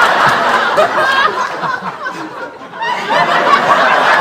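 People laughing, mixed with a man's voice; the laughter drops away for a moment past the middle, then starts up again.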